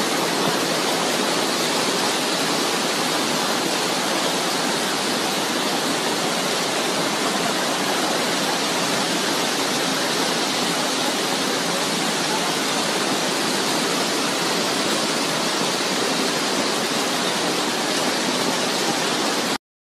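Hailstorm: heavy rain and hail pouring down in a dense, steady hiss that cuts off suddenly near the end.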